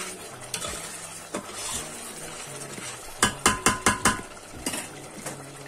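A metal slotted spoon stirring thick tomato sauce in a stainless steel pot, scraping and clinking against the pot. A little after three seconds in comes a quick run of about six sharp metallic knocks with a brief ring.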